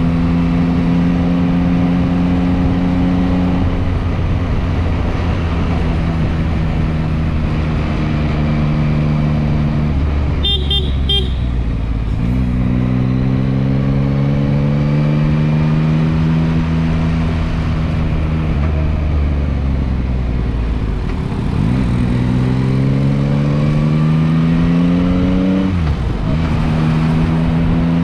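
Yamaha MT-09's inline three-cylinder engine under way at road speed, its pitch climbing as it accelerates and dropping back at gear changes several times. A few short horn toots sound about ten seconds in.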